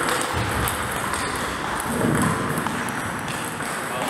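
Table tennis ball being struck by bats and bouncing on the table, a few short sharp ticks.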